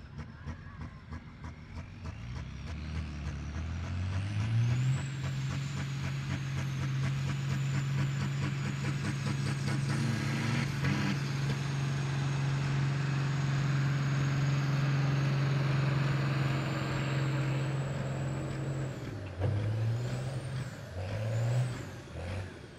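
A diesel tractor engine is revved up over a few seconds and held steady at high revs, with a high whistle that rises and falls with the engine. Near the end the revs drop, then the engine is blipped twice.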